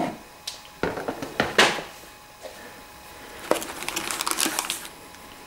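A few handling knocks and rustles, then, from about three and a half seconds in, a plastic bag of game pieces crinkling as a hand picks it out of a plastic box insert.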